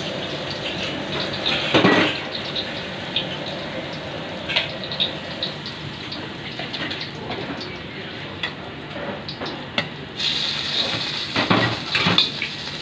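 Stir-frying in a carbon-steel wok over a gas burner: metal ladle and pans clanking against each other over a steady background noise. About ten seconds in a brighter sizzle starts, with sharp clanks near the end as food is stirred in the hot, smoking wok.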